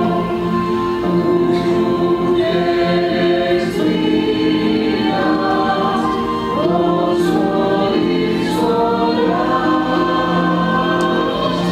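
A choir singing a hymn together, with long held notes that change every second or two.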